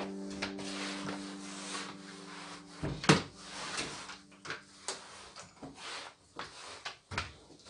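Flat microfibre mop being pushed over a laminate floor: a sharp knock about three seconds in, then a string of lighter clicks and scuffs as the swivel head knocks and rubs on the boards.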